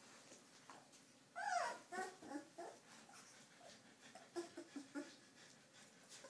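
Two-and-a-half-week-old Afghan Hound puppies whimpering: a loud cry falling in pitch about a second and a half in, followed by a string of short squeaks and whimpers.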